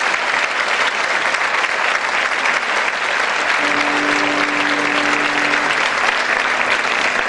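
Theatre audience applauding steadily. A faint held musical note sounds beneath the clapping from about three and a half seconds in.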